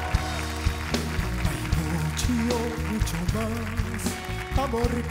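Live pop-rock band music with guitar and a beat. Held, wavering sung notes from a male singer come in about halfway through.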